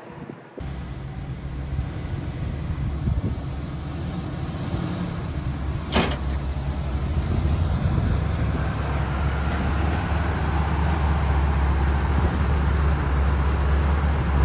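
A motor vehicle running: a steady low rumble that cuts in suddenly just after the start and grows a little louder, with a single sharp knock about six seconds in.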